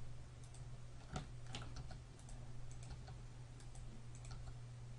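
Faint, irregular clicks of computer keyboard keys and mouse buttons as the G key and left mouse button are pressed to grab and place vertices, over a low steady hum.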